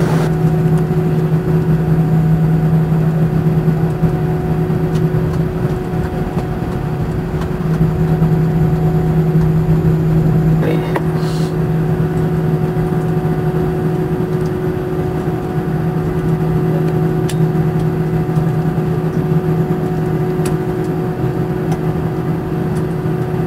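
Airliner cabin noise while taxiing: the jet engines' steady drone heard from inside the cabin, a low hum with a fainter higher tone over it.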